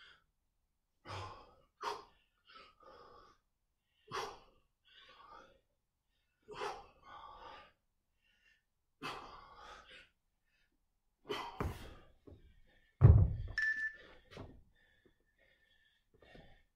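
Exercise effort: about five sharp slap-like hits a couple of seconds apart, each followed by a forceful breath, from a set of clap push-ups on a rubber gym floor. A heavy thunk about 13 seconds in is the loudest sound.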